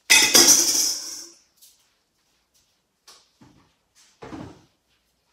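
A kitchen trash bin is opened with a loud sliding clatter that fades over about a second. Two softer knocks follow near the end.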